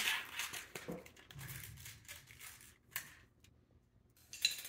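Small handling noises: scattered light clicks and rustles of small screws and plastic parts being picked up and handled on a tabletop, with a louder brief scratchy rustle near the end.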